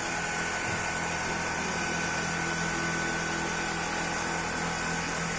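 Richpeace industrial sewing machine running steadily at high speed, a continuous mechanical whir with a constant high-pitched tone.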